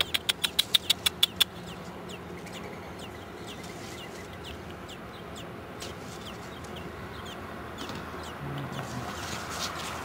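Baby birds cheeping in the nest: a quick burst of about ten sharp, loud chirps in the first second and a half, then a string of short, soft, falling peeps, two or three a second.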